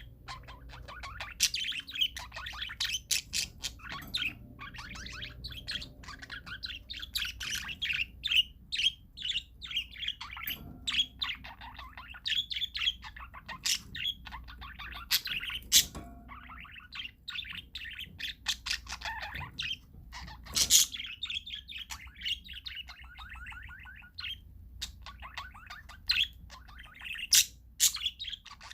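Parakeets chirping and chattering continuously, many rapid overlapping calls with sharp, louder squeaks every few seconds.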